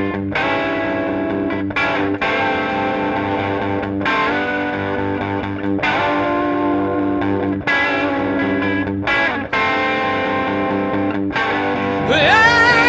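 Distorted electric guitar playing a rock riff, with full chords struck about every two seconds. A singing voice comes in near the end.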